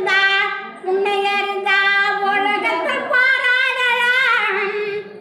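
An elderly woman singing unaccompanied, holding long notes that waver in pitch, with short breaks between phrases.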